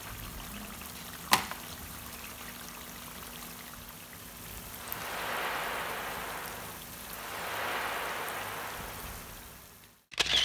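Chicken curry in coconut milk sauce sizzling and bubbling in a metal pan, with one sharp clink of the metal spatula against the pan about a second in. The sizzling swells twice in the second half, and a short loud noise comes at the very end.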